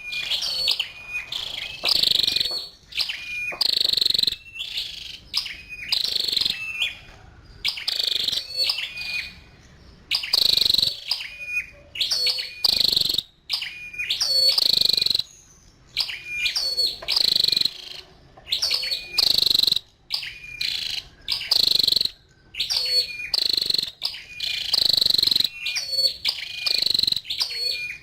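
Female flowerpecker (chim sâu đầu đỏ) calling: runs of sharp, high-pitched chips and ticks, repeating every second or two with short pauses between.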